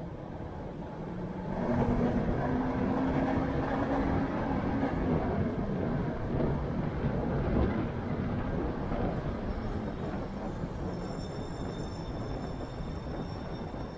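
A car driving in city traffic: steady road and tyre noise that grows louder from about two seconds in, with a low engine drone, and eases off again after about eight seconds. A faint high-pitched whine comes in near the end.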